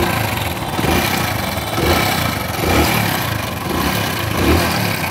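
Hero Honda motorcycle's single-cylinder four-stroke engine running, with the throttle blipped about five times. The timing chain is making a rattling noise, which the mechanic puts down to a faulty timing chain tensioner.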